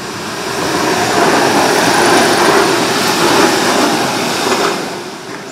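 Passenger train passing close by at speed: a loud rush of wheels on rails that builds over the first two seconds, holds, and fades in the last second.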